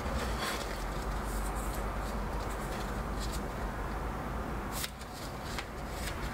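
Paper rustling and handling noise as a kraft-covered traveler's notebook is lifted and its cover and pages are leafed through, with a light knock near the end, over a steady low hum.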